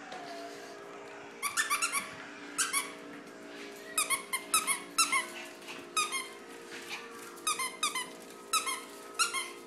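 A puppy chewing a squeaky dog toy, setting off quick runs of two to five high-pitched squeaks again and again.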